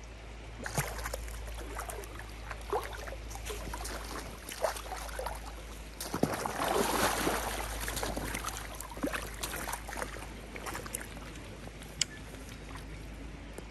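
Hooked rainbow trout splashing repeatedly in shallow water as it is brought in, over the steady rush of the river. The splashing is heaviest around the middle.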